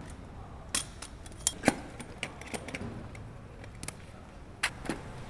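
Scattered sharp metallic clicks and clanks, about six in all and loudest twice, of a folding metal tripod stand and stool being opened and set up.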